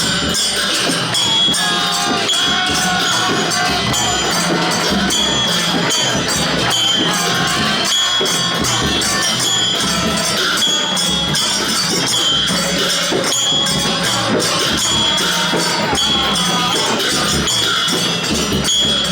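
Traditional Newar procession music: drums and jingling cymbals played in a steady, busy rhythm, with a faint melody over it.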